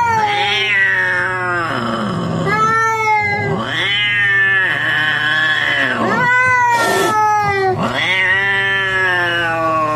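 Cats yowling in an aggressive standoff between a Siamese and a white cat: about five long, drawn-out calls, each dropping in pitch at the end. A short hiss comes about seven seconds in.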